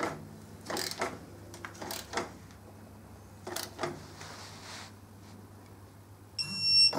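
Torque wrench at work on a motorcycle's front axle: scattered light metallic clicks and knocks, then a short high beep near the end.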